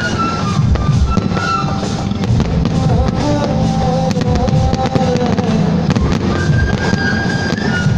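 Aerial fireworks bursting and crackling, many sharp bangs close together, over music with a held melody.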